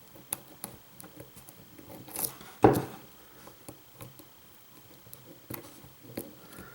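Lock picking: a hook pick and tension wrench working the pins of a pin-tumbler lock, giving small irregular metallic clicks and ticks. There is a louder scrape and knock a little over two seconds in.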